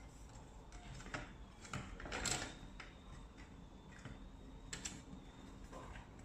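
Scattered light clicks and taps of a sheet-metal equipment chassis being handled, with a cluster of taps about two seconds in and another click near the end as the upper case is brought over it.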